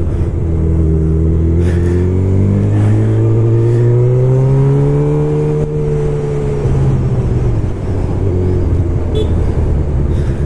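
Honda CB1000R's inline-four engine running under way, heard from the bike with wind noise. About two seconds in it pulls up in pitch for a few seconds, then eases off and drops back to a lower, steadier note.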